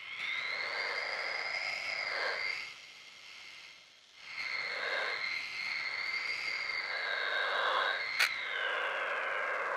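Granular synthesizer preset of the Planetarium instrument for UVI Falcon playing sustained synthetic tones: a steady high note with a higher note above it that rises at the start and drifts. The tones fade about three seconds in and swell back a second later. A sharp click about eight seconds in.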